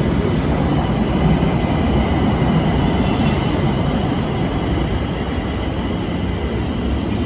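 Pittsburgh light rail train running on the rails with a steady low rumble, its wheels giving a short high squeal about three seconds in.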